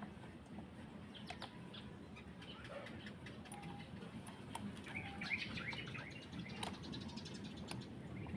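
Birds chirping in the background, with scattered light clicks and a quick run of ticks near the end.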